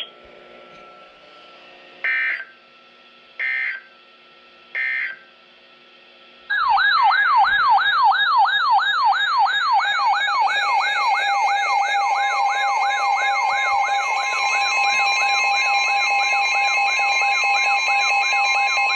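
Three short bursts of Emergency Alert System digital data tones, then a loud electronic siren tone sweeping rapidly up and down, about two to three times a second. Steady alert tones join it a few seconds later and keep sounding under the sweep.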